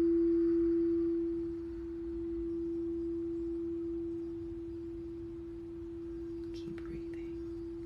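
Crystal singing bowl ringing with one steady, pure tone that dies down a little about a second and a half in, then keeps sounding.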